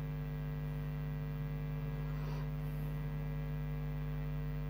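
Steady electrical mains hum: a constant low buzz with even overtones.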